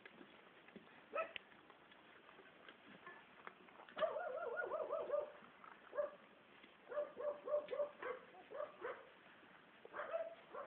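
Akita Inu puppies whining and yipping in short, high calls as they crowd and jostle at a shared food bowl. A quick run of calls comes about four seconds in, then more in small clusters.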